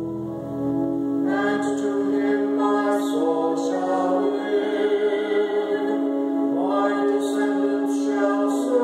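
A man and a woman singing a psalm setting together, accompanied by a pipe organ holding sustained chords. The voices come in about a second in over the organ.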